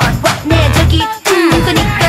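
K-pop dance-pop song with women's vocals over a pulsing synth bass and beat, with a short drop-out just past a second in.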